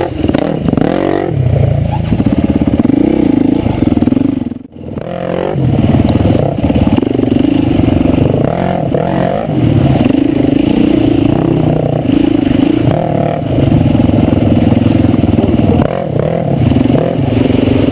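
Four-stroke single-cylinder dirt bike engine revving up and down as it is ridden, with a momentary break in the sound about five seconds in.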